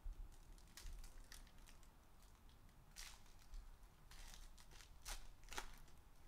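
Foil wrapper of a 2021-22 Upper Deck SPX hockey card pack being torn open and crinkled by hand: faint, scattered crackles and short rips, the strongest about three seconds in and again near the end.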